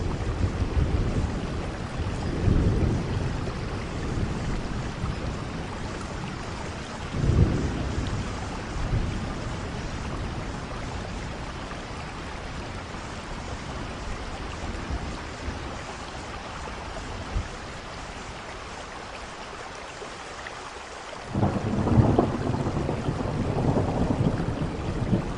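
Thunder rumbling over steady rain: a couple of low rolls in the first eight seconds, then a louder, longer rumble starting about three-quarters of the way through.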